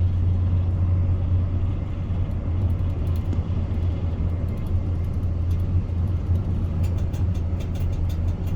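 Steady low rumble and running noise inside the cabin of an Intercity Express train travelling at speed, with a few faint clicks near the end.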